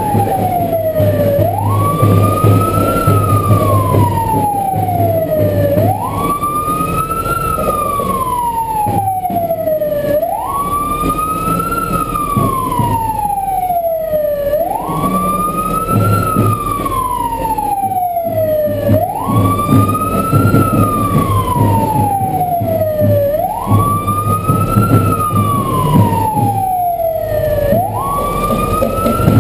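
A siren wailing in a repeating cycle: the pitch jumps up quickly, then slides slowly down, about every four seconds. An engine runs underneath.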